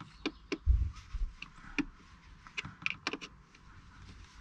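Irregular light clicks and taps of a metal pick tool working at a roof-rail speed nut in a VW Transporter's sheet-metal body, with a dull thump about three-quarters of a second in.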